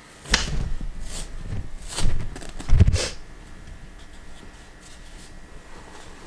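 Rustling scrapes and bumps of hands working wrap and sticky tape around a baby goat's leg, four or five short bursts in the first three seconds, the loudest about three seconds in, then quieter.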